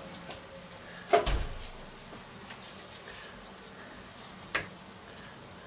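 Kitchen handling noises as grilled steak is laid onto a baguette on a wooden cutting board: a knock with a dull thump about a second in and a short sharp click a few seconds later, over a faint steady hiss.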